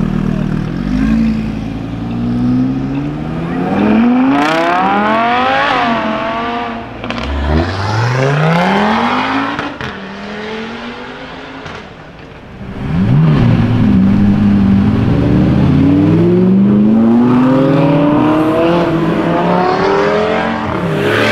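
High-performance car engines accelerating hard, several separate pulls each rising steeply in pitch, with a dip and pause about twelve seconds in. The loudest is a long pull in the second half.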